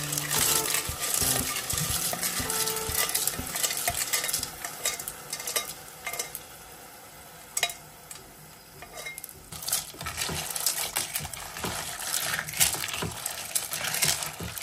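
Snail shells clattering against a steel pot as they are tipped in from a pressure cooker and then stirred with a spatula, over frying in the pot. The clatter eases off for a few seconds in the middle, then picks up again.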